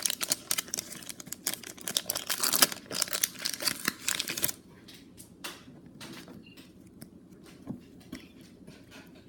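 Foil wrapper of a Pokémon card booster pack being torn open and crinkled for about four and a half seconds, then only a few faint clicks and rustles.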